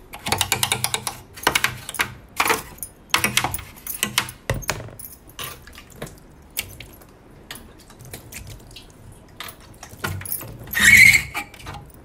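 Plastic parts of a semi-automatic washing machine being handled and cleaned: a run of quick clicks and rattles with some water sounds, thinning out after a few seconds, then a louder burst of noise about eleven seconds in.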